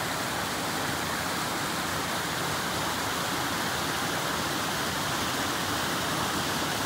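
Rushing creek water, a steady, even rush with no breaks.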